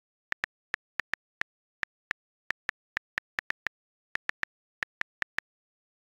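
On-screen keyboard key-press clicks from a tablet's Gboard keyboard as a message is typed: about twenty short, sharp, identical clicks at an uneven typing pace, with dead silence between them.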